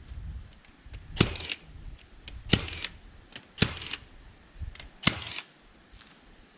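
Milwaukee cordless fencing stapler firing staples into hardwood fence posts: four sharp shots, roughly one every second and a half, each with a brief mechanical tail.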